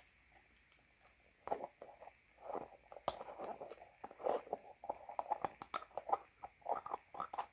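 Close-up handling of a plastic lotion jar with a screw lid: long fingernails tapping and scratching on the jar and lid, giving a quick, irregular run of crisp clicks and crackles.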